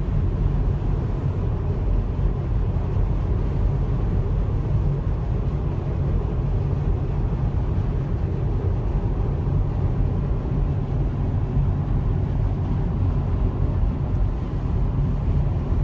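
Cabin noise inside a Tesla Model S cruising at about 75 mph on the highway: a steady, mostly low rumble of tyre road noise with some wind noise, and no engine sound, as the car is electric.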